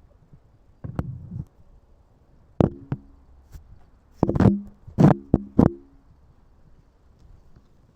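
A series of sharp knocks, some in quick pairs, about eight in all over five seconds, several followed by a brief hollow ring.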